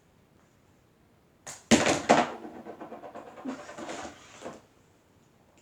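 Slime being handled: a loud burst of noise about a second and a half in, then quieter handling noise for about three seconds.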